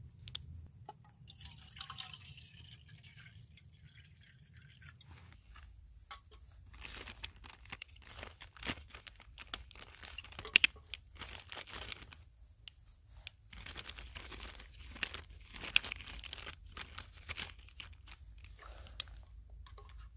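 Handling sounds of camp cooking: a plastic bag crinkling and a spatula clicking and scraping against a metal mess tin, with water dripping and splashing. There are many short, sharp clicks through the middle of the stretch.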